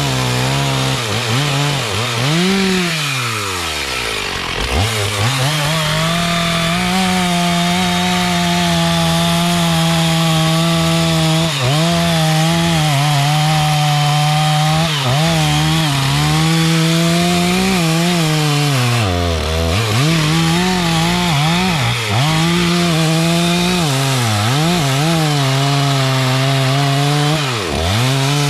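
Two-stroke chainsaw cutting mahogany wood, held at high revs with a steady engine note. The pitch sags briefly a few times under the load of the cut, most deeply about three to four seconds in, again around nineteen seconds, and near the end.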